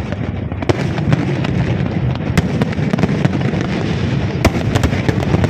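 Fireworks display: aerial shells bursting with repeated sharp bangs and crackling over a continuous low rumble, with a few louder bangs standing out, about a second in, halfway through and near the end.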